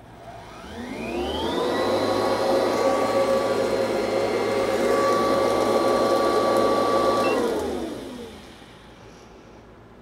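Upright vacuum cleaner switched on: its motor spins up over about a second, runs steadily for about five seconds, then is switched off and winds down.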